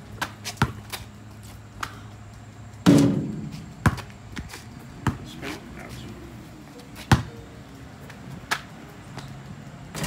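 Basketball bouncing on an asphalt driveway, single sharp bounces at uneven intervals of about a second, with a louder hit that rings on briefly about three seconds in.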